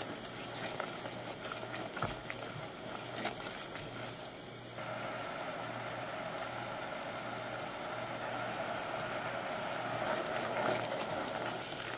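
Thickened, reduced pineapple juice simmering and bubbling in a pot on low heat as it cooks down toward caramel, with a spatula stirring through it. There are small clicks in the first few seconds, and about five seconds in it becomes a steadier bubbling hiss.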